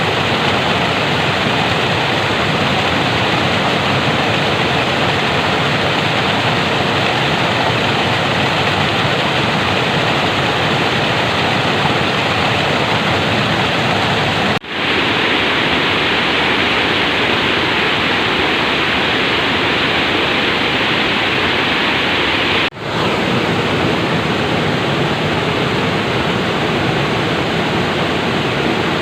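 Flowing water making a steady, even rush. The sound cuts out for an instant twice, about fifteen and about twenty-three seconds in.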